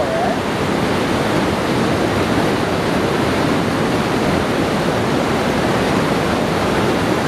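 Whitewater rapids of the Magog River rushing through a rocky gorge: a loud, steady rush of water.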